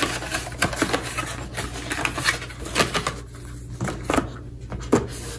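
Hands handling a cardboard iPod box and its packaging: scattered light taps and clicks with some rustling, busier in the first three seconds and sparser after.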